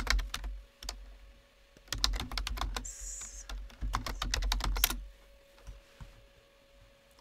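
Computer keyboard typing: three quick runs of keystrokes, stopping about five seconds in.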